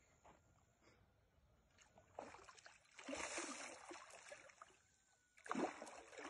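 Water splashing and sloshing, in a spell of about two seconds starting about two seconds in, then a sharper, louder splash near the end.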